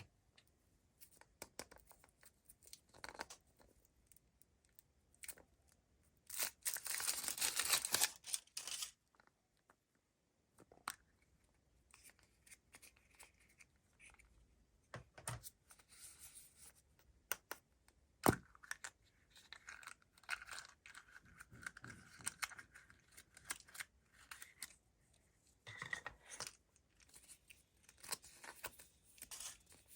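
Foil wrapper of a chocolate surprise egg being torn and crinkled off by hand. A loud stretch of tearing comes about six to nine seconds in, with scattered small crinkles and clicks the rest of the time and one sharp tap about eighteen seconds in.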